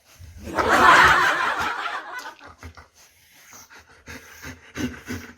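A loud, breathy burst about half a second in, lasting a second and a half, followed near the end by a Labrador panting in quick, rhythmic breaths.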